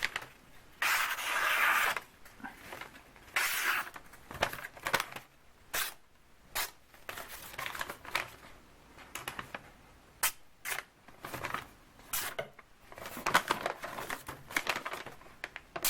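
A Cold Steel Grivory Paradox's AUS-8A steel blade slicing a sheet of paper in a sharpness test, in several rustling cutting strokes mixed with short sharp clicks.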